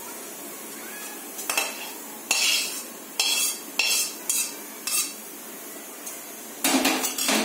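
Metal slotted spoon scraping cooked onion and tomato out of a metal kadhai into a steel mixer jar: a series of short scrapes and clinks, then a louder clatter near the end.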